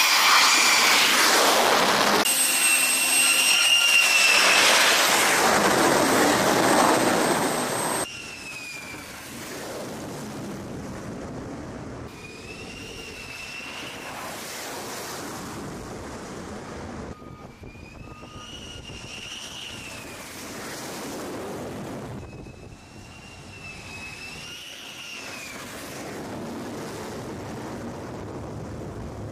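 Fighter jet engines on a carrier flight deck. For about the first eight seconds an F-35C's engine runs at a loud roar as it comes in to land. After a sudden cut, quieter jet engine noise follows, with a turbine whine that rises and falls in pitch several times, broken by abrupt edits.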